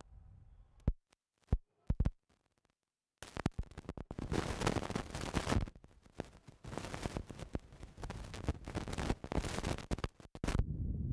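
Clip-on microphone handling noise: a few knocks and clicks, then from about three seconds in a dense crackling rustle of the mic rubbing on clothing, which stops near the end.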